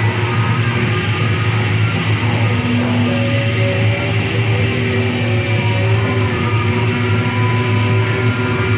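Experimental noise music: a dense, unbroken wash of noise over a steady low drone, with held tones at different pitches fading in and out every second or two and no beat.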